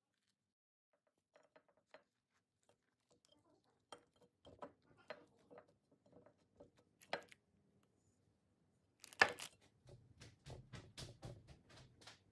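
Faint handling sounds of a flour tortilla being rolled up on a ceramic plate: soft rustles and light taps, a sharper click about seven seconds in and a louder knock about nine seconds in, then a quick run of light ticks near the end.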